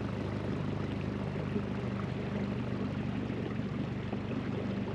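Leopard 45 sailing catamaran's diesel engines running at low, steady revs as the boat motors slowly, a steady low drone.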